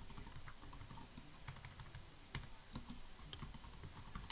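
Faint, irregular keystrokes on a computer keyboard as a command is typed.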